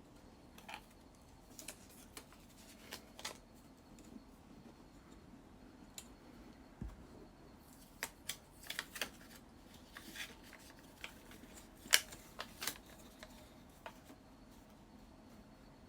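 Irregular light clicks and taps of cardstock, a ruler and crafting tools being handled on a tabletop, with one sharper click about twelve seconds in.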